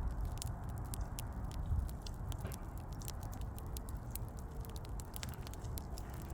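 Wood fire crackling: many irregular sharp snaps and pops over a low, steady rumble.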